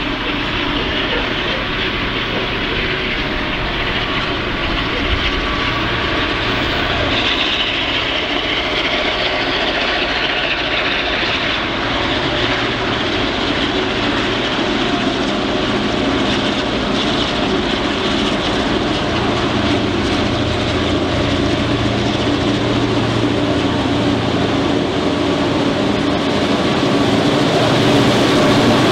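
Diesel-electric locomotives hauling an unpowered HCMT electric train set approach and pass. The engines' steady drone grows louder toward the end as they reach the platform.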